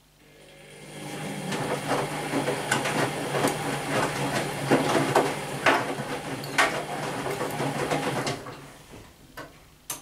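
Whirlpool Primo 1406 UM front-loading washing machine turning its drum on the rinse program. The motor hum builds up and wet laundry sloshes and slaps in the water with sharp splashes. The drum winds down and stops about eight seconds in, with a couple of faint knocks after.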